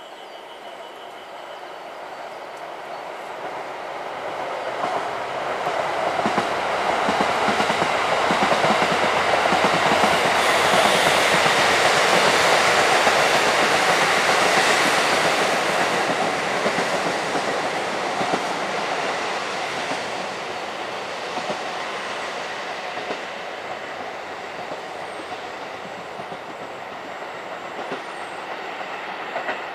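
A diesel train passing: the engine and wheel noise swell over about eight seconds, stay loudest for several seconds, then slowly fade as it pulls away, with wheels clicking over the rail joints.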